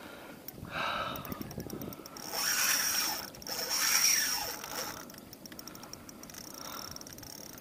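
Fishing reel clicking in fast runs of fine ticks while a hooked red drum is fought, broken by three louder rushing bursts about one, two and a half, and four seconds in.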